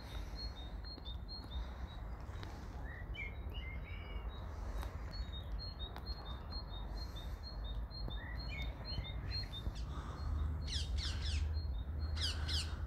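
Songbirds chirping with many short high calls, and near the end two quick runs of falling notes. Under them is a low rumble that grows louder about ten seconds in.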